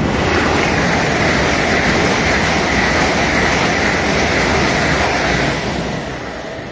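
LNER Azuma high-speed train passing through at speed without stopping: a loud, steady rush of wheels on rail and air. It eases off a little over five seconds in as the last coach goes by.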